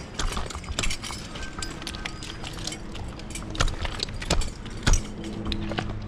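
Irregular metallic clinks and scuffs of a tree climber's gear, carabiners and hardware on the harness jingling as he handles his climbing rope, with one heavier thump about five seconds in. A low steady hum runs underneath.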